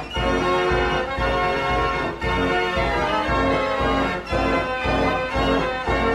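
Background music: held keyboard chords over a steady, pulsing bass.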